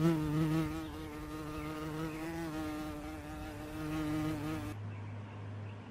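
A flying insect buzzing close by in a steady drone that wavers slightly in pitch, then stops abruptly near the end.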